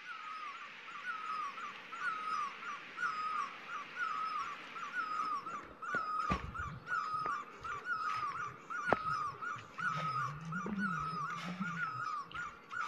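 A high, wavering animal call repeated evenly about twice a second over a steady hiss. From about six seconds in, footsteps crunch through dry leaf litter on a forest trail.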